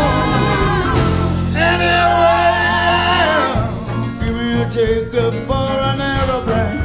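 Live rock-soul band with horns, guitars, keyboards, drums and singers playing; a long held note with vibrato swells in about a second in and stops about three and a half seconds in, after which the band carries on in a sparser groove.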